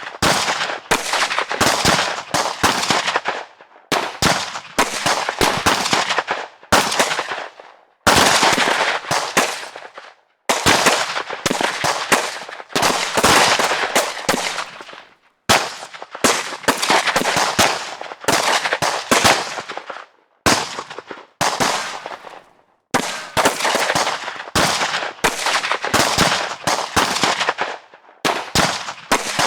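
Gunfire: a series of gun-shot sound effects, clusters of rapid shots and single shots, each trailing off in an echo, with short pauses between the sequences.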